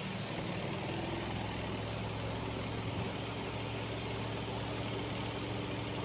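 Spin-dryer motor of a Polytron PWM 7383 twin-tub washing machine running with a steady hum that settles in about a second in, the spin tub turning.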